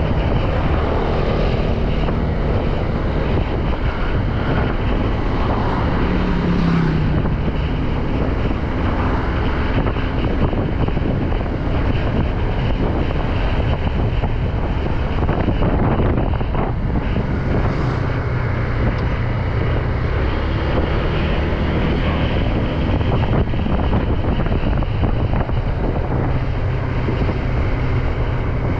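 Wind rushing over the microphone on a moving motorbike, with the bike's engine running underneath and changing pitch now and then.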